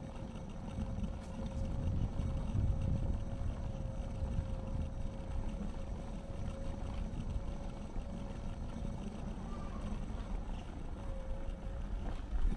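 Riding an electric city bike: wind on the microphone and tyre rumble, with a steady whine held for most of the time that breaks off briefly near the end.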